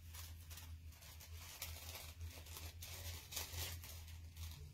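Scissors snipping through a thin paper napkin, with the paper rustling in the hand: a series of short, crisp, irregular cuts. A steady low hum runs underneath.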